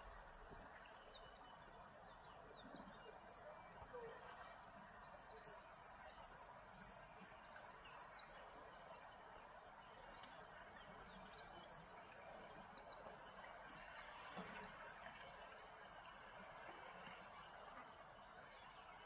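Insects trilling: a faint, steady, high-pitched chirring that goes on without a break.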